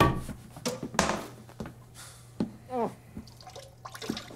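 Muffled moans and whimpers from a gagged, tied-up man, broken by knocks and scuffles as he kicks on the floor.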